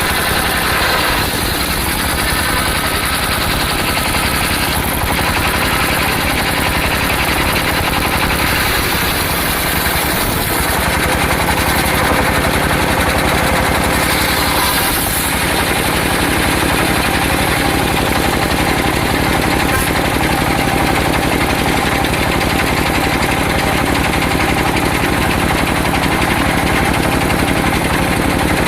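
Engine-driven circular sawmill (serkel) running, its engine firing in a rapid, even beat, with the tone shifting slightly about halfway through.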